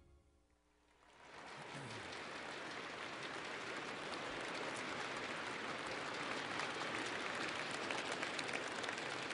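Large audience applauding, swelling in about a second in and then holding steady.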